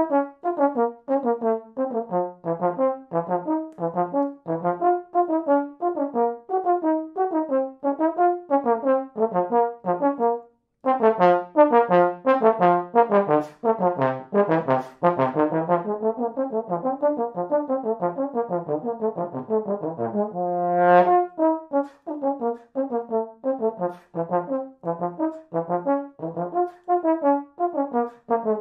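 Solo tenor trombone playing an etude in B flat minor: a quick stream of short, light, detached notes and arpeggios. There is a brief break for a breath about ten seconds in, and one longer note that swells around twenty seconds in.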